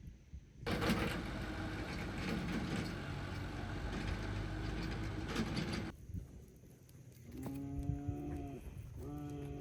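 Cattle mooing: one long call lasting about five seconds, then a second animal call about two seconds later, the first of several similar calls about a second long.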